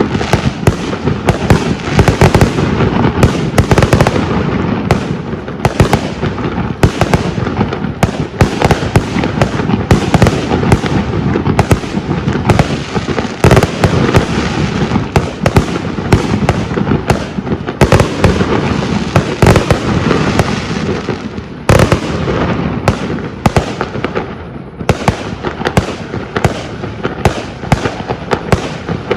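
Aerial fireworks display: a dense, continuous barrage of shell bursts and crackling reports, echoing, with brief lulls about two-thirds of the way through.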